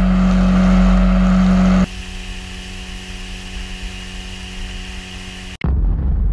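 Tiller outboard motor on a small aluminium boat running at speed, a steady engine drone with rushing water and wind; about two seconds in it drops to a quieter steady engine sound. Near the end a sudden deep boom cuts in and dies away.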